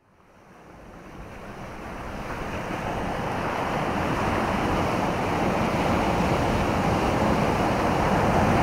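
A steady rushing ocean-surf ambience, fading in from silence over the first three seconds.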